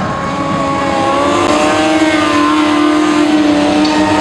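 A vehicle engine held at high revs, a steady whine whose pitch wavers slowly up and down.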